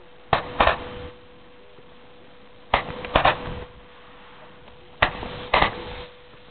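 Fireworks going off: three pairs of sharp bangs, one pair about every two and a half seconds, each bang trailing off briefly.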